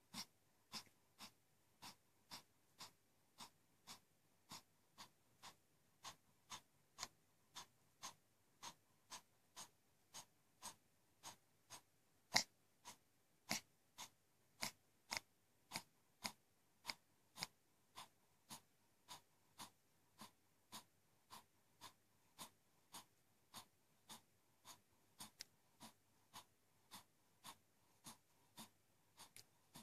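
Faint, rapid, laboured breathing of a Yorkshire terrier with a worsening enlarged heart: a short click or crackle with each breath, evenly spaced at nearly two a second, one louder near the middle.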